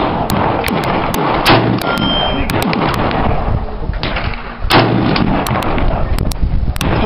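Gunshots at a shooting range, fired at uneven intervals, with two louder shots: one about a second and a half in, one just before five seconds.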